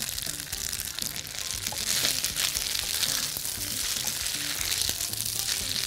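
Boiled spaghetti sizzling in ghee in a hot nonstick frying pan as it is stirred and tossed with metal tongs, with small clicks and scrapes of the tongs against the pan.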